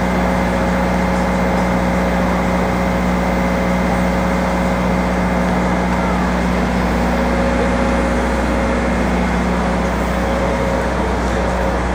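A steady machine drone with a constant low hum and a fainter high whine, unchanging in level.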